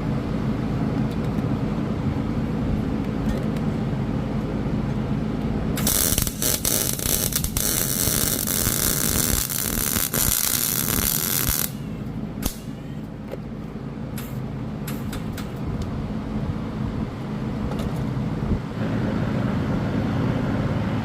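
MIG welder welding an exhaust sleeve onto the pipe: a continuous crackling hiss lasting about six seconds, stopping suddenly, then a few scattered clicks. A steady low hum runs underneath.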